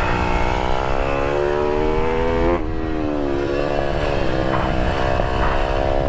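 IMR GP20 pit bike engine pulling hard through the gears, revs climbing, dropping at an upshift about two and a half seconds in, then climbing again.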